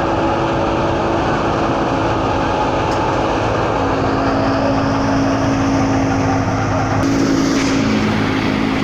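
Wheat thresher running at working speed as wheat is fed in, driven by a New Holland Al-Ghazi 65 hp tractor: a loud, steady mechanical running with a hum. The sound changes abruptly about seven seconds in.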